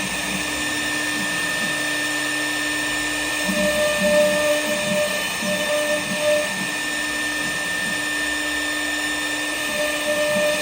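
CNC router running: a steady high spindle whine over a lower hum, with uneven louder pulsing stretches about three seconds in and again near the end.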